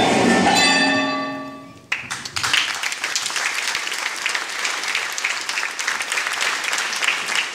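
Music with held notes fading out, then audience applause breaking out suddenly about two seconds in and continuing as dense, steady clapping.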